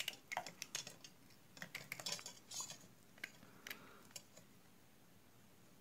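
Light clicks and small metallic taps, scattered over about four seconds, as a small electric compressor's aluminium cylinder sleeve and gauge fitting are handled and turned over in the hands.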